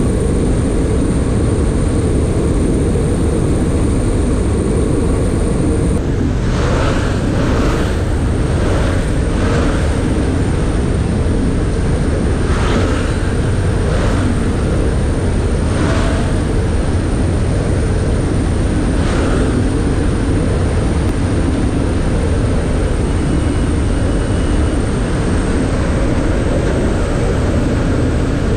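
Steady loud drone of the C-145A Combat Coyote's twin turboprop engines and rushing slipstream, heard from inside the cabin with the jump door open. Between about seven and nineteen seconds in there is a string of brief rushes of noise as parachutists exit.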